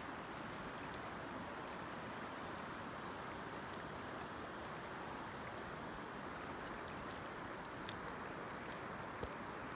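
Shallow river flowing over cobbles: a steady rushing, rippling hiss of water. A few faint clicks come near the end.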